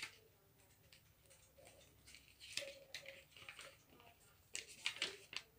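Paper pages of a handmade journal being turned by hand: soft papery rustles and flicks a few times, the loudest cluster near the end.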